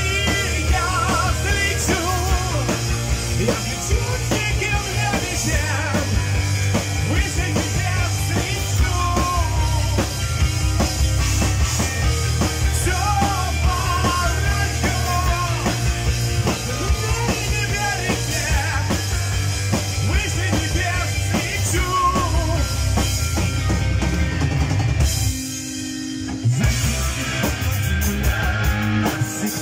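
Live heavy metal band playing: distorted electric guitars, bass guitar, drum kit and sung lead vocals. About 25 seconds in the band drops briefly to a quieter held note, then comes back in at full volume.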